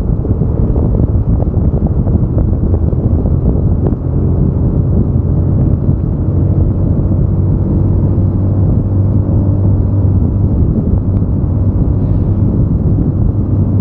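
Wind rushing over the camera's microphone while riding along a road, with a steady low engine hum and road rumble underneath that grows stronger about halfway through.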